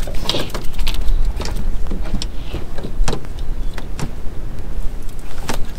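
A string of sharp knocks and clatters over a steady low rumble.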